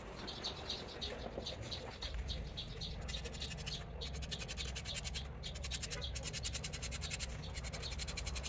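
Marker tip scratching and squeaking against a javelin shaft as it draws a line around the turning shaft: a rapid, fine scratching with short chirpy squeaks.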